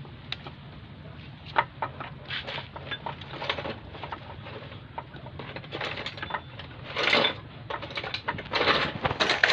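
Irregular clicks, knocks and scrapes of hand tools and metal engine parts being handled during motorcycle engine reassembly, with a louder scraping rustle about seven seconds in and again near the end, over a low steady hum.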